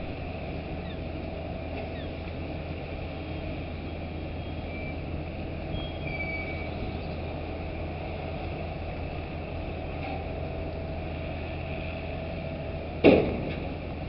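Steady low drone of the dockside crane's machinery as its empty clamshell grab is lowered into the ship's hold. Near the end there is a single loud metallic clang with brief ringing as the grab lands in the hold.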